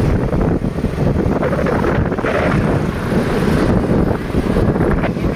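Wind buffeting the microphone of a moving motorcycle or scooter, over a steady low rumble of engine and road noise.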